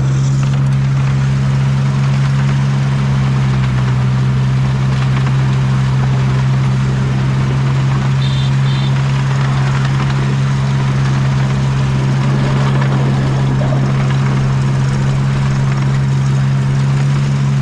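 A miniature park railway train's engine running with a steady low hum that does not change in pitch, plus the noise of the ride. Two short high beeps about eight seconds in.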